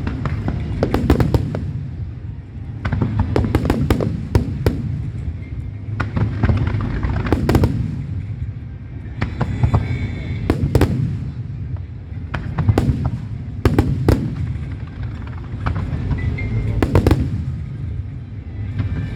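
Aerial fireworks display: clusters of sharp bangs and crackles every second or two over a continuous low rumble of shells going off.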